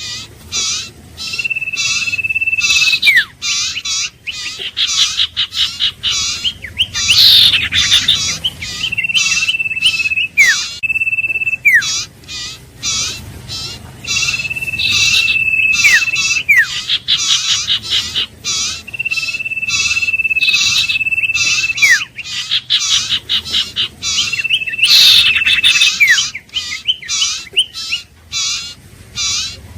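Iora singing: drawn-out level whistles, each ending in a quick downward slur, repeated about six times over a fast, nearly continuous stream of short chirping notes.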